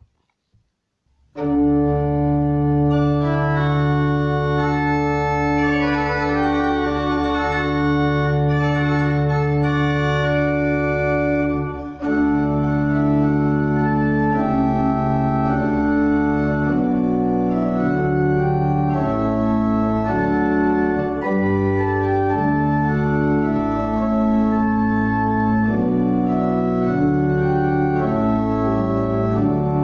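Church pipe organ starts playing about a second and a half in: full held chords over a sustained deep pedal bass, with the chords changing more often in the second half.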